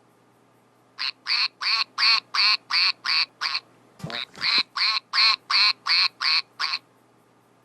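Duck quacking in quick, evenly spaced runs of about three quacks a second, with a break between runs and a deeper, falling call about four seconds in.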